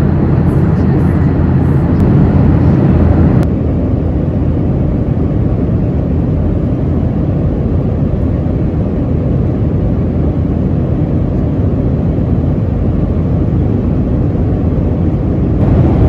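Steady in-flight cabin noise of a Boeing 737-900ER: its CFM56-7B jet engines and the airflow outside, heard from a window seat during the climb. About three and a half seconds in it changes abruptly to a quieter, duller hum with less hiss.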